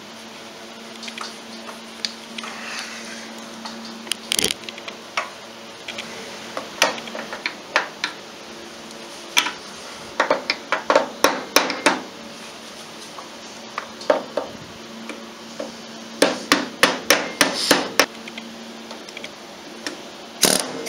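Hammer blows on metal, tapping in the pin that holds the front CV axle onto the differential shaft of a Polaris Sportsman ATV: a few single strikes, then quick runs of several blows a second around the middle and again near the end, over a faint steady hum.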